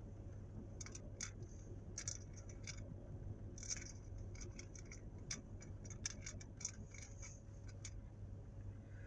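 Faint, irregular clicks and light scratches of small plastic toy pieces handled between the fingers, as tiny toy boots are worked onto a small toy puppy figure. The clicks come in loose clusters over a low steady hum.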